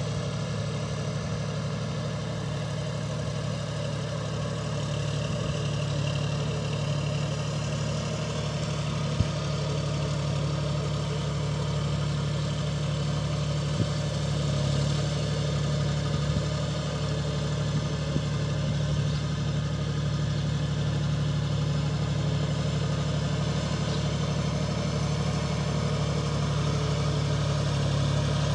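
Diesel tractor engine running steadily at an unchanging pitch, with a couple of brief sharp ticks about nine and fourteen seconds in.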